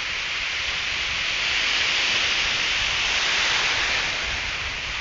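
Ocean surf breaking and washing up the sand as a steady hiss. It swells about a second and a half in and eases off near the end.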